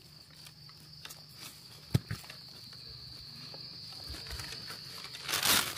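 An insect calling steadily on one high pitch throughout, with a couple of small clicks about two seconds in and a short rustle near the end as a hand works the wet soil.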